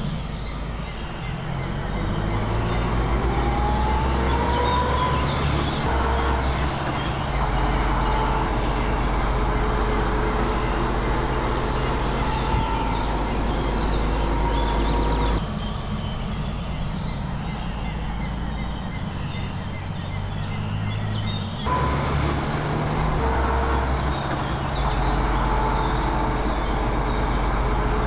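MAN TGS 35.510 truck's six-cylinder diesel engine running under load as the truck drives, with a rising whine about four seconds in. The engine note changes abruptly twice, about fifteen and twenty-two seconds in.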